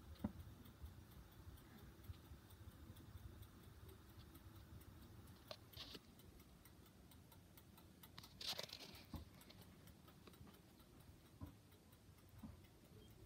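Near silence: faint room tone with a few scattered light clicks and one short noise about eight and a half seconds in.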